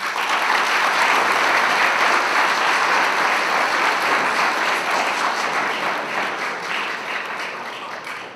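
Audience applauding, starting all at once and fading gradually over the last few seconds.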